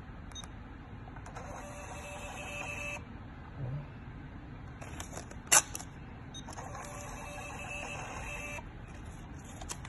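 Built-in thermal receipt printer of a Verifone VX 520 card terminal printing a sales receipt for about a second and a half. A sharp click comes about five and a half seconds in, then the printer runs for about two seconds more, printing the customer copy.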